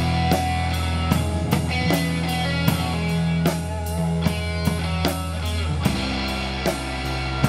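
Live rock band playing an instrumental passage: a drum kit keeps a steady beat of about two and a half strokes a second under held low bass notes and guitar.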